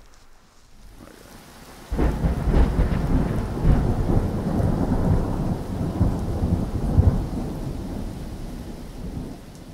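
Thunder rumbling over steady rain. It comes in suddenly about two seconds in, swells several times, then slowly fades near the end.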